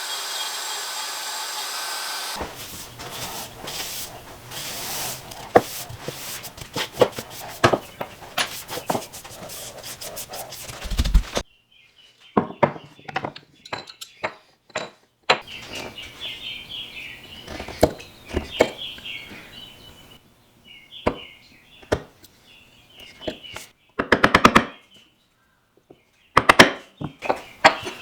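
A power tool runs for about two seconds and stops. Then comes a long run of hand work on walnut: irregular sharp knocks, taps and light scraping of wood and tools.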